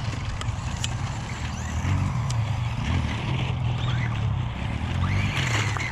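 2WD Traxxas Slash VXL radio-controlled trucks running on a dirt track: short electric motor whines that rise and fall with the throttle, a few sharp clicks, over a steady low rumble.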